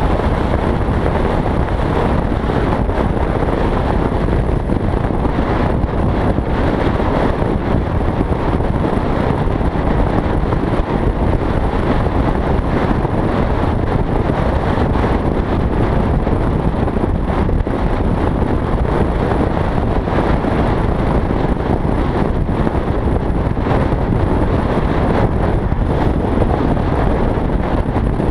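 Steady rush of wind and road noise on a helmet-mounted GoPro at riding speed, with a Yamaha XT660Z Ténéré's single-cylinder engine running underneath.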